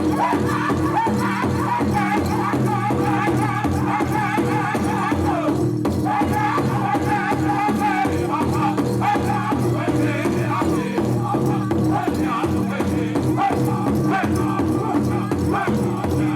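Powwow drum group singing a grass dance contest song in chorus over the steady, even beat of a big drum, with a brief break in the voices about six seconds in.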